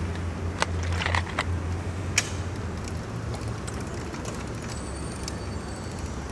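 Steady low background hum, with a few short clicks and rustles in the first couple of seconds.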